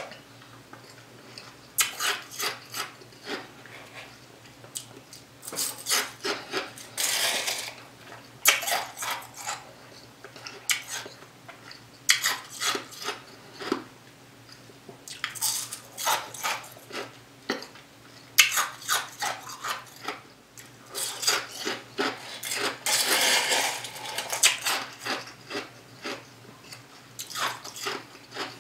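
A person crunching mouthfuls of ice, in bursts of rapid crisp crunches every few seconds with quieter gaps between, along with a spoon scraping and clinking in a cup.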